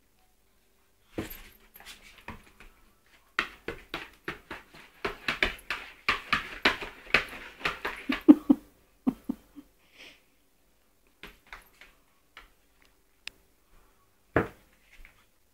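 A small poodle pouncing and scuffling at a dead insect: a quick run of short clicks and scuffs, densest between about three and nine seconds in, then a few scattered taps.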